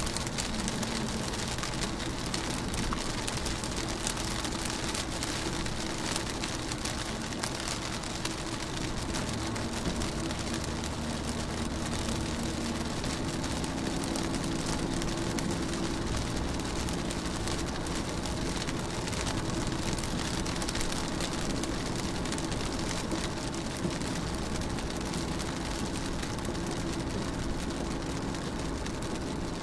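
Raindrops falling steadily on a car window, with a faint low hum underneath.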